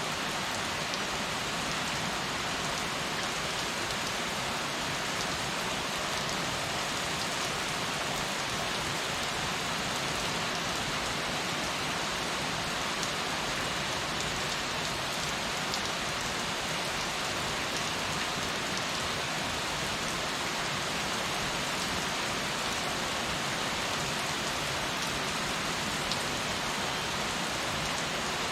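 Heavy rain falling steadily, a dense even hiss of drops striking surfaces.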